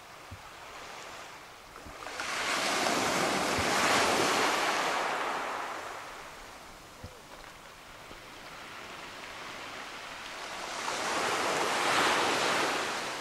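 Small waves breaking and washing up a pebble beach, rising and falling as two swells of surf, one building about two seconds in and another near the end.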